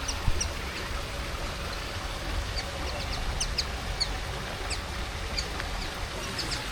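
Aviary birds chirping: many short, high chirps scattered throughout, over a steady low rumble, with a single sharp knock about a third of a second in.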